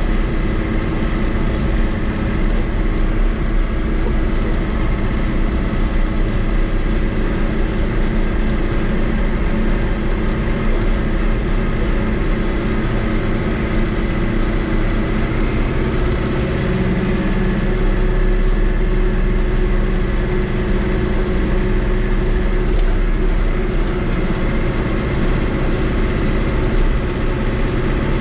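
Fiat 80-90 DT tractor's diesel engine running steadily while the tractor drives along the road, heard from inside the cab, with the cab rattling along. The engine note shifts slightly about seventeen seconds in.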